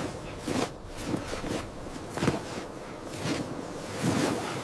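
Footsteps crunching through snow: a series of uneven steps, roughly one or two a second.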